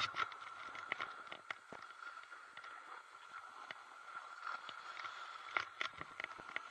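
Faint swish and scrape of riding down a groomed ski run, with scattered small ticks and clicks and a faint steady high tone.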